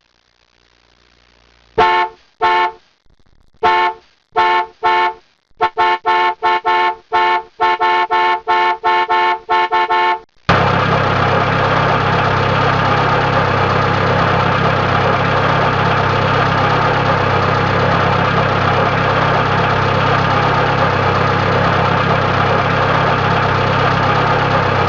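Car horn honking: a few separate short beeps, then a quick run of rapid honks, then about ten seconds in the horn is held down in one long unbroken blast.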